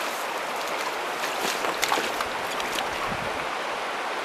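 Rushing water of a trout stream, a steady hiss with a few sharper splashes about one and a half to two seconds in.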